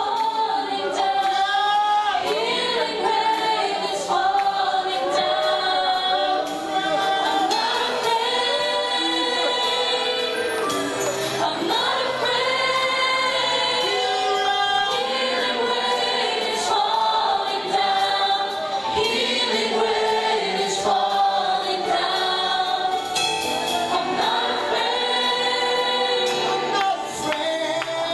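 A worship team of several singers singing a gospel worship song together, with instrumental backing.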